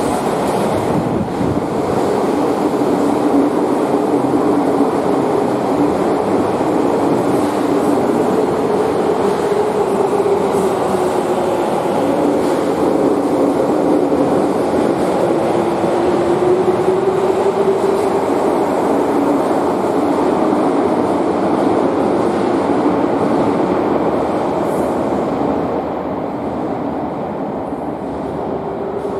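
Subway train running along an underground station platform: steady running and wheel noise with a motor hum that slowly rises and falls in pitch. It fades off about a second or two before the end.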